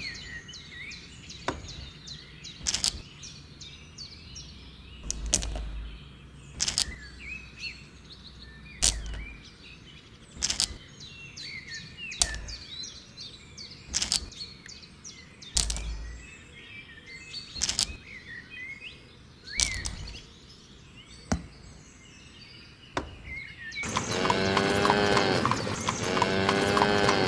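Birds chirping, with sharp knocks every second or two, a few of them with a deeper thump. A loud, drawn-out animal call comes near the end.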